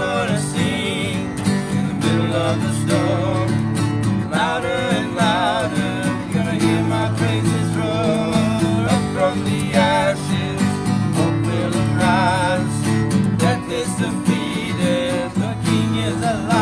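Live worship music: acoustic guitar strummed under a sung melody.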